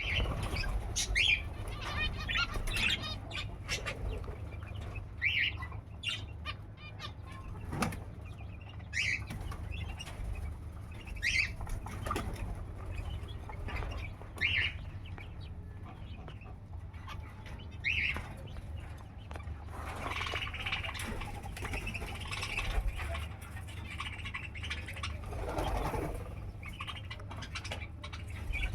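Birds in a rooftop aviary chirping in short calls every second or two, with some wing flapping, over a steady low hum.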